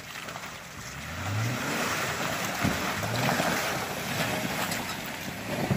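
Jeep Wrangler's engine revving as it drives past through mud, its pitch rising twice and loudest as it goes by, over a wash of tyre and mud-splash noise.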